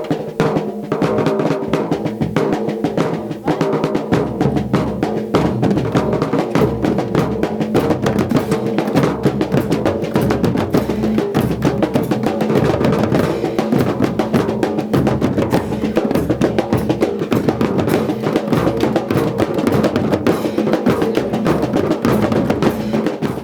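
A percussion group playing a batucada on drums made from recycled metal cans, latões and plastic buckets. The beat is dense and steady, with many strikes overlapping.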